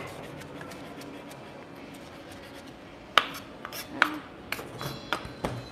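Chef's knife chopping fresh chives on a cutting board: quick, light taps, then a few louder, sharper knocks and clinks from about three seconds in.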